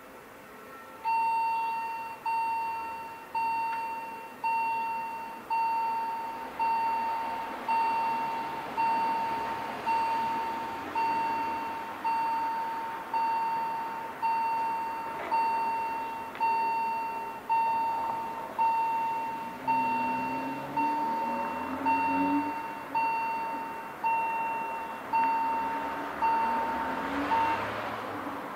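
Level-crossing warning bell striking about once a second, each stroke a clear ringing tone that fades before the next, signalling an approaching train while the crossing barriers close. The bell starts about a second in and stops shortly before the end.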